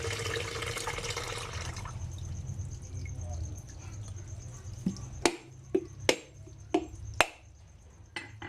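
Coconut water draining and trickling out of a coconut for about two seconds, then fading. In the second half comes a string of about six sharp knocks, roughly half a second apart, with a fainter one near the end.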